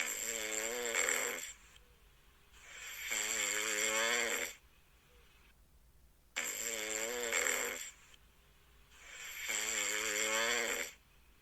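A cat snoring: four drawn-out, wavering snores, each about one and a half to two seconds long, with short quiet gaps between them.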